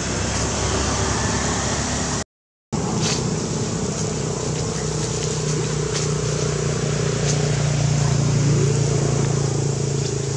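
A steady low engine hum over a broad rushing noise. The sound cuts out completely for about half a second a little after two seconds in, and there are a few faint clicks.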